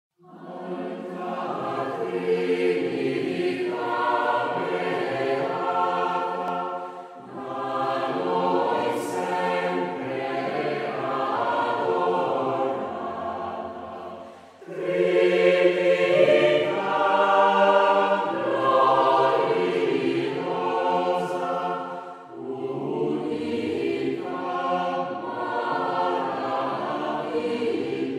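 A choir singing in four long phrases, each breaking off briefly before the next begins.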